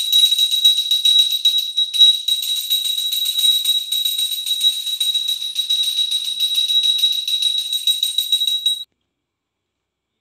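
Small brass puja hand bell rung rapidly and without a break during the flame-waving of a Hindu puja: a bright, high, metallic ring. It cuts off suddenly about nine seconds in.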